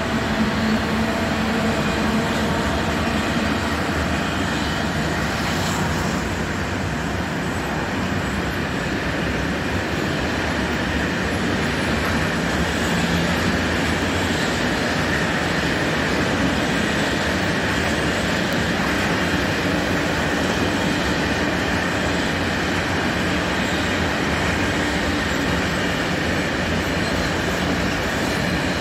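Freight train of covered goods wagons rolling steadily past, a continuous running noise of wheels on rails.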